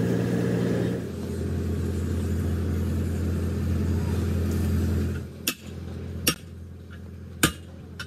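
An engine running steadily, dying away about five seconds in. Three sharp metallic clinks follow, about a second apart.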